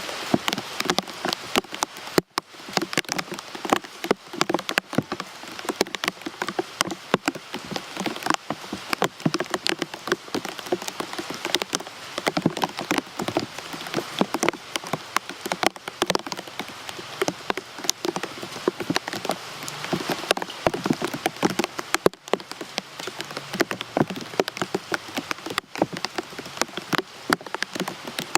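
Rain falling steadily, with many distinct drops striking a surface close by. The sound briefly cuts out twice, about two seconds in and again near the end.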